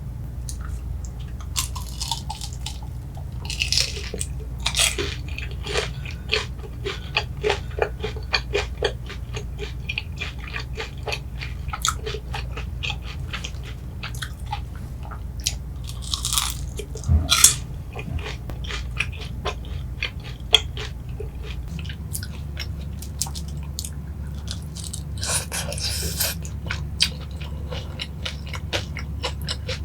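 Close-miked biting and chewing of boneless sweet-spicy Korean fried chicken (yangnyeom chicken), the coated pieces crunching with many small crackles and a few louder bites, over a steady low hum.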